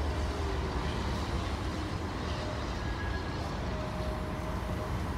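Steady low rumble of streetcars at a loop: a TTC CLRV standing at the platform while another streetcar moves off behind it, with faint thin whines now and then.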